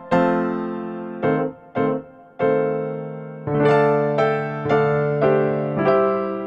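Background music on a piano-like keyboard: a slow line of struck notes and chords, each ringing and fading before the next.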